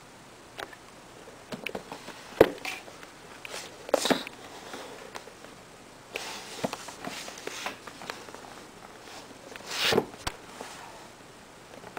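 Hands handling a cardboard retail box on a wooden table: scattered knocks and taps with brief rustling and scraping. The sharpest knock comes about two and a half seconds in, and a longer rustling scrape near the end.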